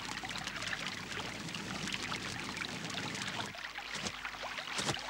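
Dry spinifex grass burning over a bed of rock oysters, crackling densely with many fine snaps; the fire heats the shells until they pop open. The crackle dies away about three and a half seconds in, leaving a few scattered light clicks.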